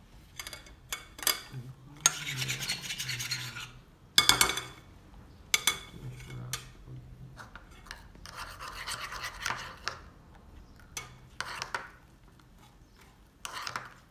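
Homemade glue-and-shaving-foam slime being stirred and worked in a bowl: scattered sticky clicks and pops, the loudest about four seconds in, with two longer stretches of rubbing noise.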